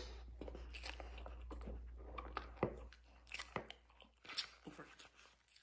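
Close-miked chewing of a mouthful of white powder from a tablespoon: irregular soft crunches and crackly clicks, a few sharper ones in the second half.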